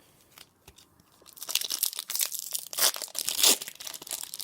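A Pokémon TCG booster pack's foil wrapper being torn open and crinkled. This starts about a second in and runs as a dense crackle, loudest near the end.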